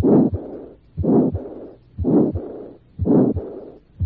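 Stethoscope recording of a heart at the second right intercostal space, with moderate aortic stenosis and moderate aortic regurgitation. About one beat a second, four beats in all: each is a loud systolic murmur followed by a softer murmur, and the second heart sound is faint or missing.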